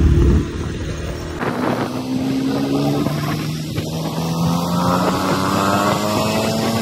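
Small Honda motorcycle engine running while being ridden, its revs climbing slowly and steadily over several seconds as it pulls along, with wind rushing over the microphone.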